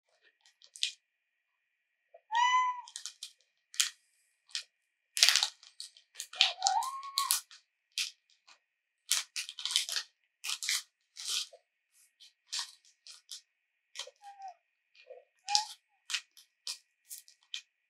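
Domestic cat meowing: a short meow about two and a half seconds in, a longer rising meow around seven seconds, and a few small chirping calls near the end. Many sharp crackles and clicks run among them.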